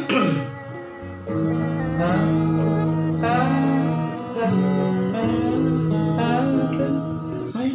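Music: an acoustic guitar playing, with a voice singing a melody over it.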